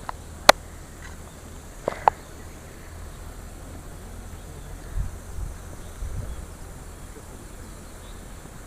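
Quiet outdoor background with a sharp click about half a second in and another about two seconds in. Low rumbles follow around the middle.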